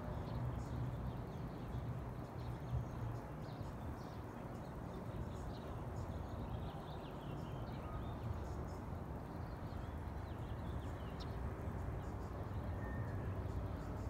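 A strange, steady low drone of unknown origin, with faint short high chirps scattered over it.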